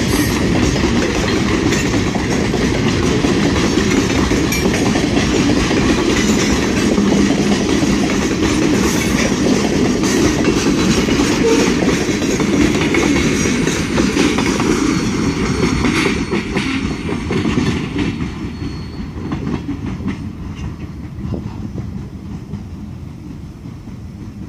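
Freight cars of a passing train rolling by, steel wheels clicking over the rail joints with a steady rumble. About two-thirds of the way through the last car passes and the sound fades away as the train moves off.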